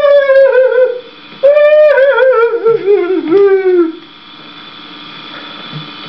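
A man wailing as if sobbing: two long high-pitched cries, each falling in pitch and wavering. The second dies away about four seconds in, leaving a quieter steady background hum.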